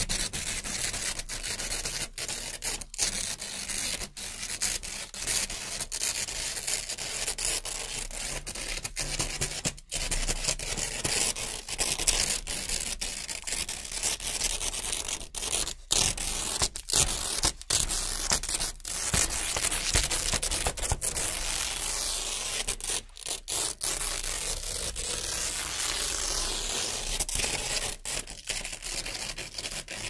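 Velcro strips being ripped apart by hand, one strip after another: a continuous tearing rip broken by short pauses between pulls.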